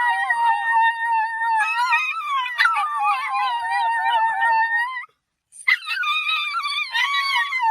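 A dog howling in long, drawn-out, high-pitched notes that waver and rise and fall. It breaks off about five seconds in, then starts howling again.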